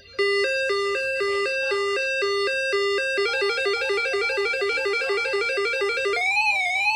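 Whistler WS1025 weather alert radio sounding its alert tones in a siren test: two electronic tones alternating for about three seconds, then a faster warble, then from about six seconds a wailing siren tone sweeping up and down about twice a second.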